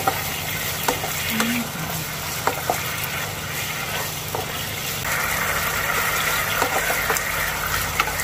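Mushroom sauce sizzling in a granite-coated wok while a slotted spatula stirs it, with scattered light scrapes and taps against the pan. The sizzle grows louder about five seconds in.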